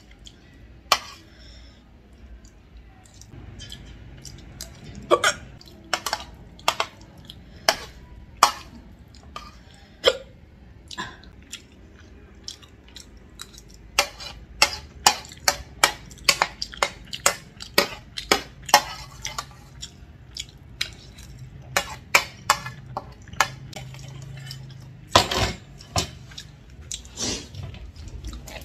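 A woman hiccuping over and over during a bout of hiccups, mixed with many sharp clicks and clinks of eating from a plate. The clicks come thickest from about halfway through, and a stronger hiccup comes near the end.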